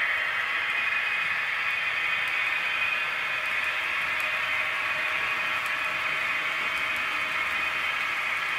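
H0-scale model freight train running on the layout's track: a steady hum and rolling noise from the locomotive's motor and the wheels on the rails, with faint ticks.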